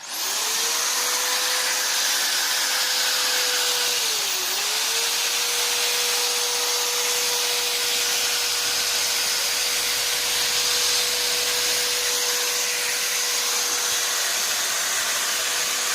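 Electric drill switched on and running at steady full speed with its bit wound into PVC card-printer ribbon: a steady motor whine that sags briefly about four and a half seconds in.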